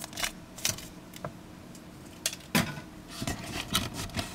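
Hands rummaging in a cardboard phone box to lift out an accessory: scattered light clicks, taps and rustles, the sharpest tap about two and a half seconds in.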